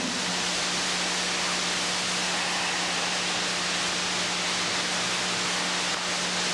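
Steady hiss with a constant low hum and nothing else: the noise floor of an old videotape recording.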